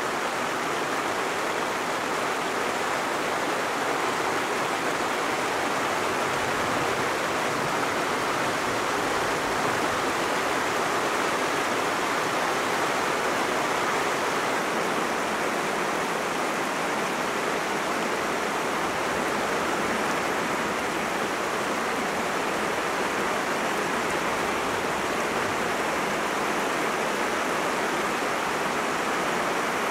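Heavy rain falling steadily, a continuous even hiss that does not rise or fall.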